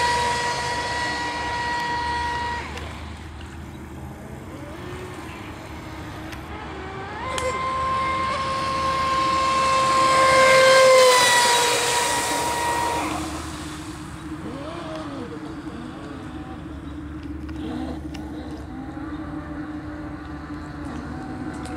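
Joysway Invincible Razor RC speedboat's electric motor whining at speed on two passes: a high, steady whine that fades after two or three seconds, then returns louder about seven seconds in, drops a little in pitch and fades away.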